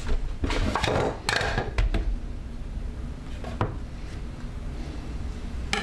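Kitchen knife cutting a block of processed cheese in two and knocking on the cutting board: a cluster of knocks in the first two seconds, then a single knock a little past the middle and another near the end.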